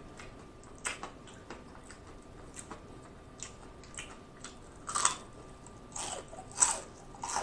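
Close-miked chewing and crunching of crispy fried chicken: irregular short crackling crunches, the loudest about five seconds in and again near the end.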